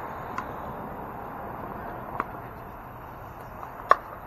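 Pickleball paddles striking the ball in a rally: three sharp pocks about a second and three-quarters apart, the last and loudest near the end, over a steady background hiss.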